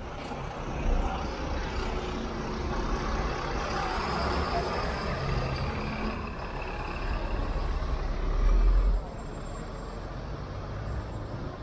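City street traffic with double-decker buses' engines running close by. A louder low rumble swells a little past eight seconds in and cuts off suddenly.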